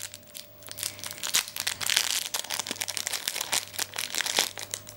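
Thin clear plastic bag crinkling as hands handle and unwrap it, a dense run of quick, irregular crackles.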